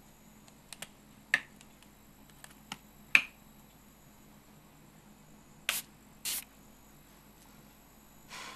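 Small plastic bottles being handled: a series of sharp clicks and taps over the first few seconds, then two short hissing bursts about half a second apart.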